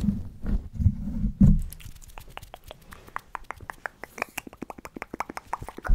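Fingers rubbing and scratching a microphone's furry windscreen, a low rumbling rustle for about the first second and a half. Then a fast run of mouth sounds close to the microphone: lip smacks and clicks, several a second.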